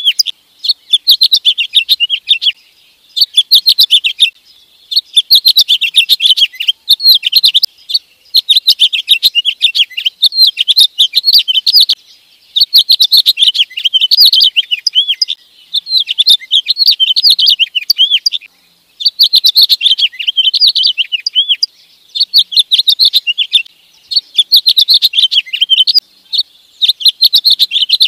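House finch singing: a run of fast, warbled song phrases, each one to three seconds long, with short pauses between them.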